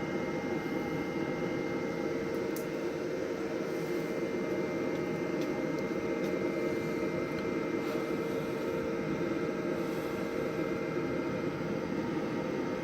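Davy Crockett pellet grill's combustion fan running with a steady hum and a thin whine during start-up, while the igniter heats the pellets before they catch. A faint tick or two about two and a half seconds in.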